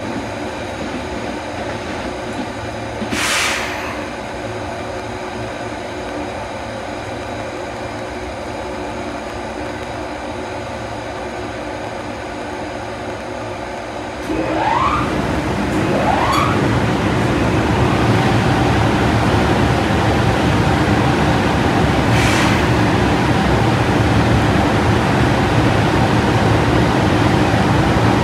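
JR Freight EF210 electric locomotive standing with its equipment humming steadily. About halfway through, its cooling blowers start up: a whine that rises in pitch over a couple of seconds, then a louder, steady rush of air. A short hiss comes near the start and again near the end.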